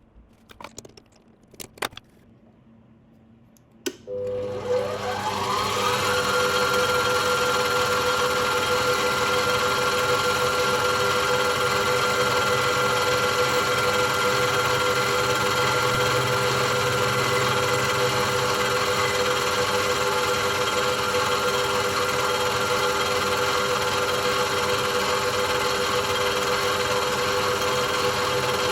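A few clicks, then a small electric motor is switched on about four seconds in. It spins up with a rising whine and runs steadily at constant speed.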